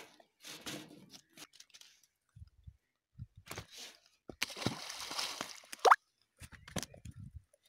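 A fishing net handled and pulled over dry, cracked mud while fish are freed from it: scattered soft knocks and crunches, and a few seconds in a longer scraping rustle that ends in a brief, sharp rising sound.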